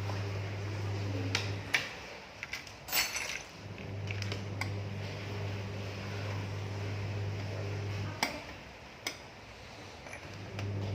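A few sharp metallic clicks and knocks as a wrench works a stiff transit bolt out of the back of a front-loading washing machine, over a steady low hum that drops out around the knocks.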